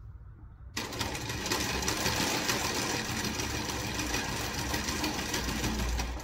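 Juita JT20U-63Z industrial zigzag sewing machine starting up about a second in and stitching through fabric at a steady high speed with a fast, even rattle, then stopping suddenly near the end.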